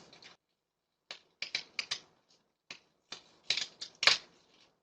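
Irregular sharp crackles and pops, some single and some in quick clusters, from a faulty extension cord arcing and burning.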